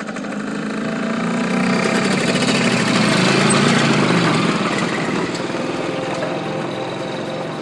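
Motorcycle with a sidecar riding past and away, its engine growing louder to a peak about three and a half seconds in, then fading as it rides off.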